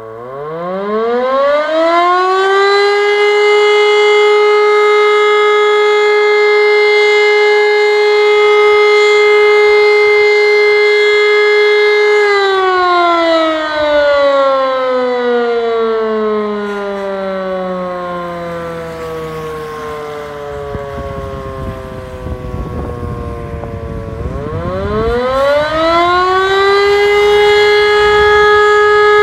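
E57 electromechanical motor siren sounding the fire-brigade alert. It spins up to a steady howling tone, holds it for about 12 seconds, then winds down slowly as it coasts, and spins up again near the end. This is the German fire alarm pattern of three 12-second tones used to call out the volunteer firefighters.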